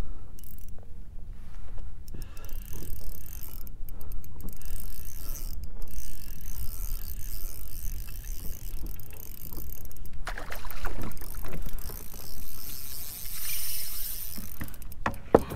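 Handling and water sounds on a fishing kayak: uneven rumble with scattered light knocks, and one sharp knock near the end.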